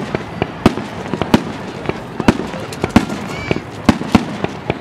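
Aerial fireworks going off: an irregular series of sharp bangs and pops, several a second.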